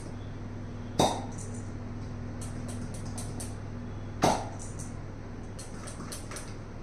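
Two short, sharp pops about three seconds apart, over a steady low hum.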